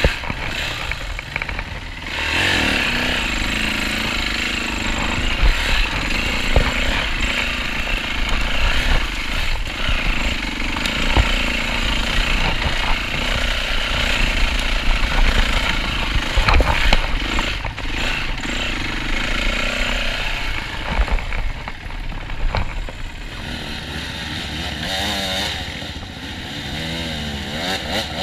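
Yamaha dirt bike engine running as the bike is ridden along a rough trail, with knocks and rattles over the ground. Near the end the ride slows and the engine sound drops, its pitch rising and falling.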